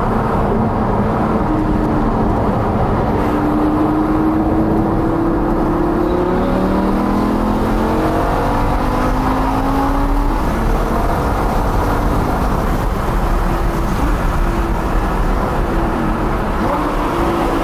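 Car engine heard from inside the cabin while driving, over steady road and tyre noise; its note climbs in pitch for several seconds around the middle as the car accelerates.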